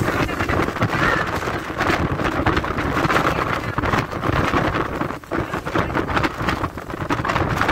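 Wind buffeting the microphone of a phone carried on an open moving vehicle, gusty and loud, over the vehicle's road and engine noise.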